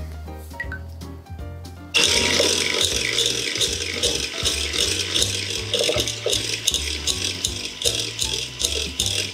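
Electric hand mixer starting about two seconds in and running steadily, its beaters whipping cream in a bowl, over background music.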